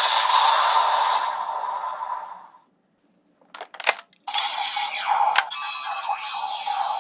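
Electronic toy sound effects that fade out, then a few sharp plastic clicks, then another electronic sound effect with a held tone starting about four seconds in.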